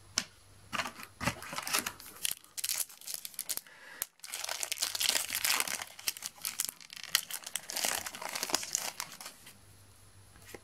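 Foil Match Attax card packet crinkling in the hands and being torn open. The crackling stops for a moment about four seconds in, runs thickest for the next five seconds, and thins out near the end.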